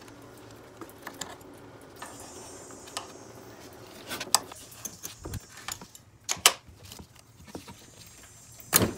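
Scattered clicks, clinks and scrapes of a disconnect tool and gloved hands working a coolant hose quick-connect free from the Jaguar S-Type heater valve, with a few sharper knocks in the second half.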